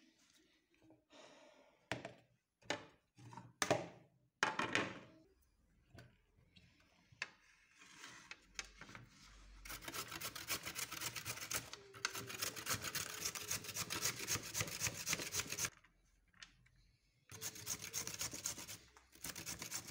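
Red carrots being grated on a flat stainless steel hand grater: quick, rapid rasping strokes in two spells with a short pause between. A few separate knocks come before the grating starts.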